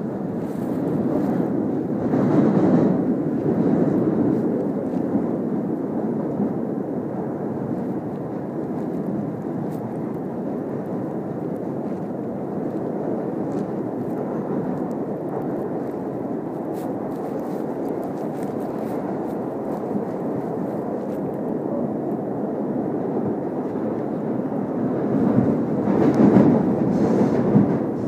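Subway train running: a steady rumble that swells louder about two seconds in and again near the end, with faint clicks over it.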